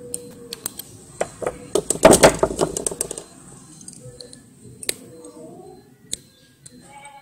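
Metal pliers clicking and scraping against a tiny metal motor can as it is prised apart to free its magnet. A quick flurry of clicks and rattles about two seconds in is the loudest part, with scattered single clicks after.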